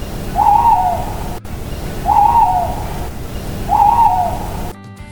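An owl hooting three times, each hoot a short wavering call about a second and a half apart, over a steady background hiss.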